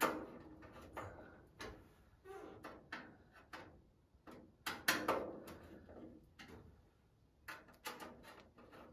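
Hand screwdriver tightening the hinge screws on a steel cabinet door: scattered clicks and light metal knocks, the loudest about five seconds in.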